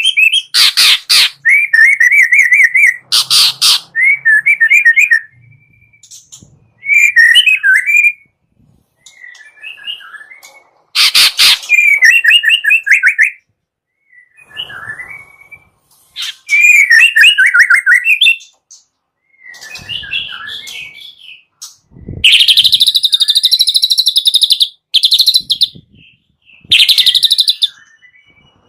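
White-rumped shama (murai batu) song: loud phrases of fast rattling trills, sweeping whistles and harsh rasping 'kretek' notes, separated by short silences.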